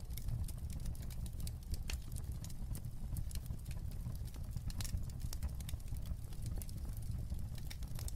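Fire crackling in a fireplace: irregular pops and snaps over a low, steady rumble.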